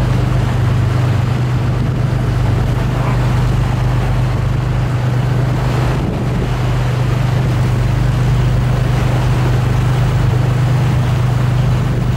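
Boat engine running steadily, a constant low hum, heard from aboard, with a steady rushing noise over it.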